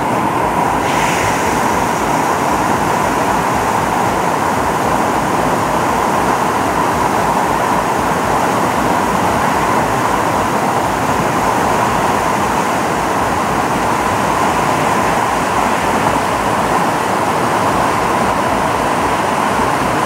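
Fast-flowing rocky stream in spate, white water pouring over and between boulders: a loud, steady rush of water.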